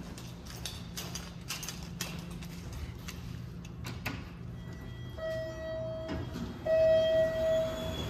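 Footsteps along a hallway and a click at the elevator call button, then the elevator's electronic arrival chime sounding twice, each a held tone of about a second, the second one louder.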